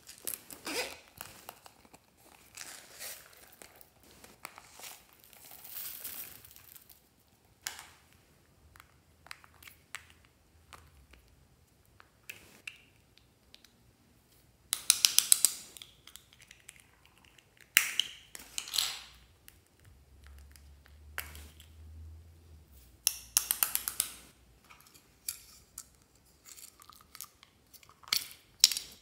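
Small plastic containers being handled and opened, and loose slime add-ins such as sequins tipped out into a glass dish, with scattered clicks and crinkling and several bursts of rapid rattling clicks, the loudest about halfway through.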